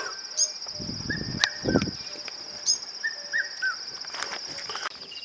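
A steady, fast-pulsing high insect trill, cricket-like, with short bird chirps and a few sharp clicking notes scattered over it, mostly in the first half.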